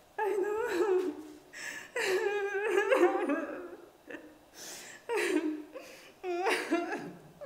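A woman's high, wavering wordless vocal outbursts in four long bursts, with her hands over her face.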